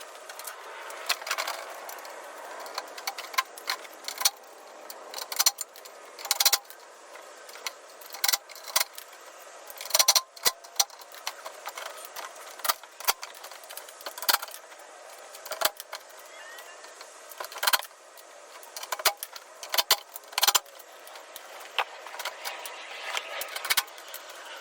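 Irregular metallic clinks, taps and knocks from parts of a steel tool cart being handled, some sharp and loud, over a steady hiss.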